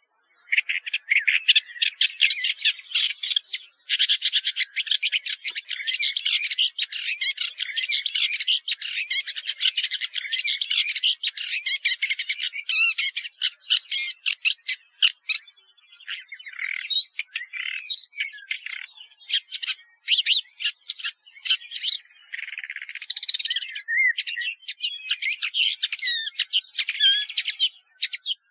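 Woodchat shrike singing: a long, fast run of chattering notes mixed with short whistled slurs. There is a brief pause about four seconds in, and the phrases grow more broken in the second half.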